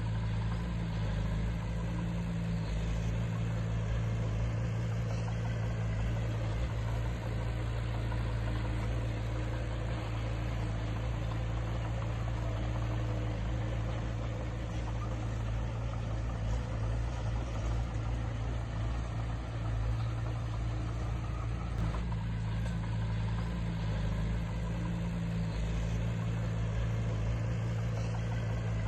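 Diesel engine of heavy earthmoving equipment running at a steady speed, a low, even drone with no revving.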